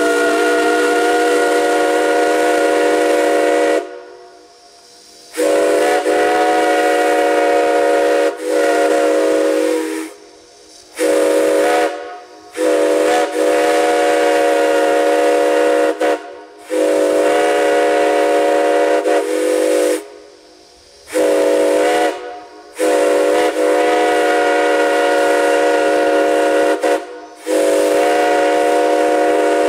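Steam whistle blowing a string of long and short blasts with brief breaks between them, several notes sounding together as a chord.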